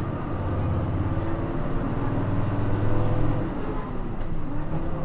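Nissan Diesel JP city bus's diesel engine under load, heard from inside the bus, with a deep steady drone. It eases off about three and a half seconds in, as at a throttle lift or gear change, then picks up again.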